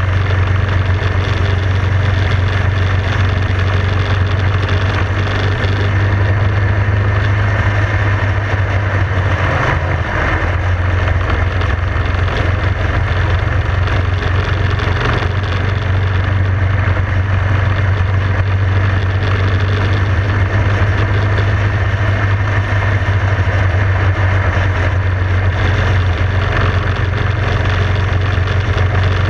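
Motorcycle engine running at steady highway cruising speed: a constant low drone under a rush of wind over the microphone. The engine note dips briefly about ten seconds in.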